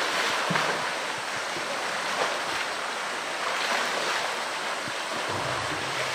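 Water splashing and sloshing in surges as a polar bear thrashes and pushes a floating plastic barrel around in its pool.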